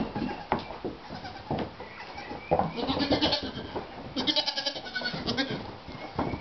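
Goats bleating in the barn: two high, quavering bleats in the middle, the second the longer, over scattered knocks of hooves on the wooden floor.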